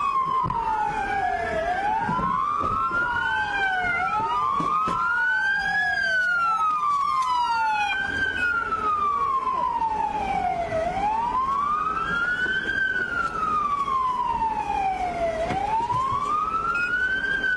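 Police car sirens wailing, each rising and falling slowly about every four to five seconds. Two sirens overlap out of step at first, and one carries on in the second half.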